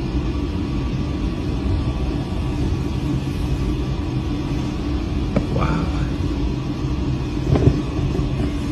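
Steady low rumble and hum inside the OceanGate Titan submersible's cabin while it moves near the wreck, with two brief knocks, one about five seconds in and one near the end.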